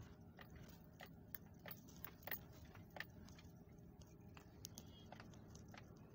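Faint, steady low hum of a Chevrolet Tahoe's V8 idling, heard from inside the cab, with scattered light clicks and ticks at irregular intervals.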